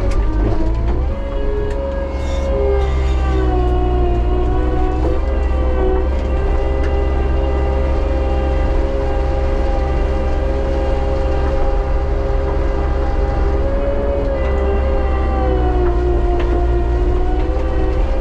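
Bobcat T77 track loader's diesel engine running with a low steady rumble and a tonal whine that slides up and down in pitch several times as the machine works.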